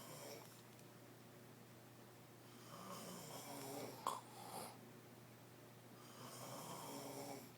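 A woman snoring in her sleep, slow snores coming about every three and a half seconds. A sharp click breaks into the middle one.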